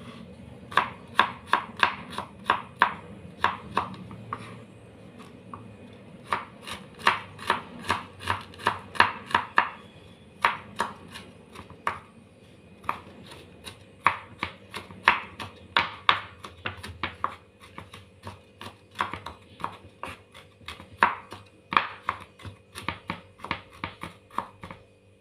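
Kitchen knife mincing garlic on a wooden cutting board: runs of quick, sharp knocks, about four a second, broken by several short pauses.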